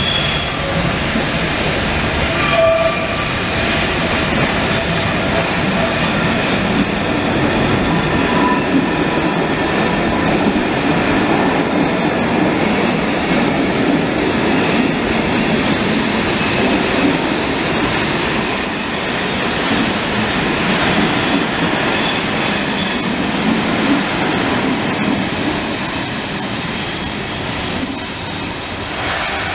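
Locomotive-hauled passenger train rolling past on curved station track: steady wheel-and-rail rumble with high, steady squealing tones from the wheels, strongest in the last few seconds.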